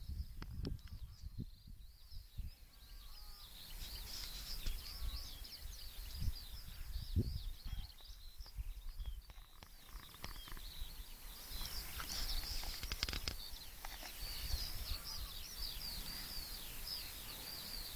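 Birds singing continuously in a dense chorus of rapid, high chirps, fuller after the first few seconds, over irregular low rumbles of wind on the microphone.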